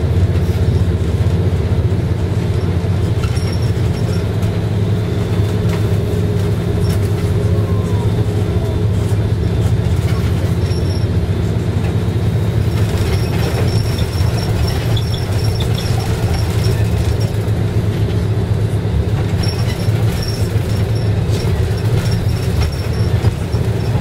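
Tobu bus engine and road noise heard from inside the passenger cabin: a loud, steady low drone, with faint light rattles coming and going in the second half.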